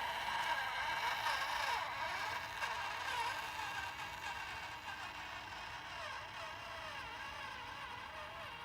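Micro RC crawler's small electric motor and gearbox whining. The pitch wavers up and down with the throttle, and the sound slowly grows fainter.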